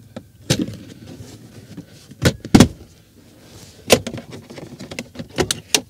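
Hard plastic interior car trim panel beside the centre console being pulled back and handled, giving about six sharp plastic clicks and knocks with rustling in between.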